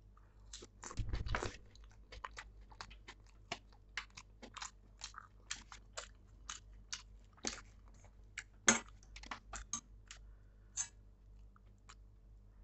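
Close-up chewing of buttered pav and bhaji: a steady run of wet mouth clicks and smacks, with a louder burst about a second in and one sharp click a little past the middle.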